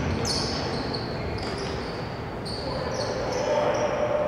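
Basketball game sounds on a hardwood court: sneakers squeaking in a string of short, high-pitched chirps, with the ball bouncing.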